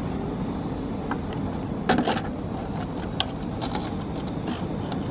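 Steady low rumble of wind on the microphone, with a few knocks and splashes as crayfish are pushed down into a pot of water. The loudest knock comes about two seconds in, and a smaller click a little after three seconds.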